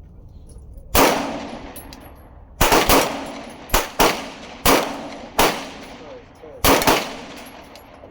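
Springfield XD Mod 3 semi-automatic pistol firing about ten shots in irregular strings: one shot about a second in, a quick burst of three, then single shots roughly every half to one second, each with a short echoing tail.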